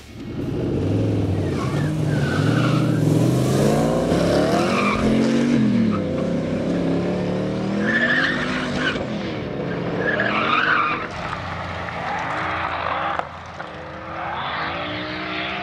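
Turbocharged 403 ci LS V8 Chevrolet S-10 pickup and a second car accelerating hard from a standing start, side by side. The engine notes climb in pitch and drop back at each gear change, several times over, with tire squeal from wheelspin at times.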